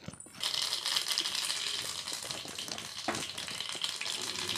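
Mustard seeds and urad dal hitting hot oil in a pan: sizzling starts suddenly about half a second in and goes on steadily with fine crackling as the mustard seeds begin to splutter for the tempering.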